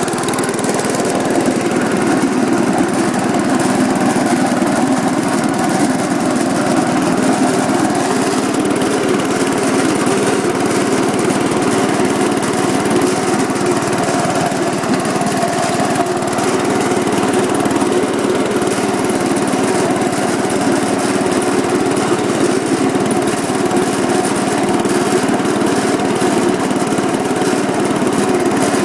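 Gravely Commercial 10A walk-behind tractor's engine running steadily at speed, driving its MA-115 snowblower attachment as it throws snow.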